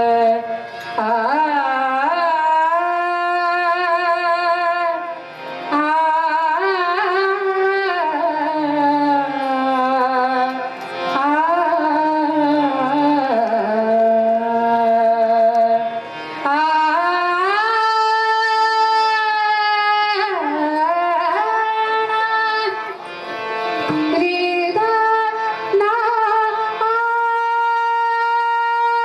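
A woman singing a devotional bhajan in long, gliding phrases with a wavering ornamented pitch and short breaks between lines. Near the end a single steady note is held.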